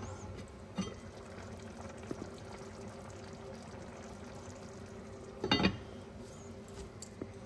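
Meat sauce simmering in an enameled cast-iron Dutch oven, a steady soft bubbling hiss with a few small ticks. About five and a half seconds in comes a brief loud clank as the heavy lid is handled.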